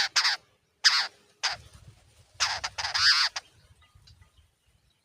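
Jungle babblers giving harsh, raspy calls in four bursts, the last and longest lasting about a second, then falling quiet.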